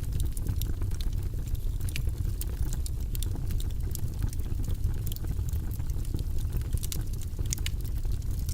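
Wood logs burning in a fireplace, crackling with frequent small, irregular pops and snaps over a steady low rumble.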